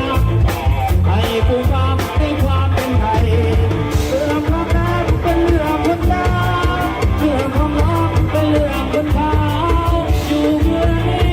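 Loud music from a Thai rot hae sound-truck band: a sung melody over a steady, evenly spaced drum-kit beat.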